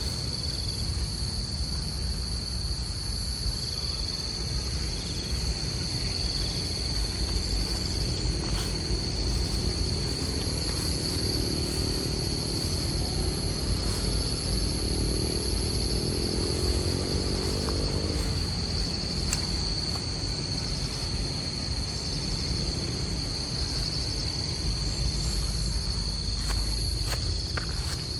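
Steady high-pitched insect chorus with a low rumble underneath. A faint humming sound swells in the middle and fades out about two-thirds of the way through.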